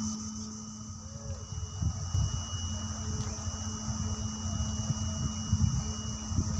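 Steady high-pitched insect chorus, crickets or similar, with one thin unbroken whining tone held throughout. Under it, a low hum early on and irregular low rumbling from about two seconds in.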